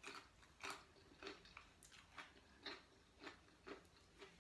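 A person chewing food close to the microphone: faint, crisp chewing sounds, about two or three a second.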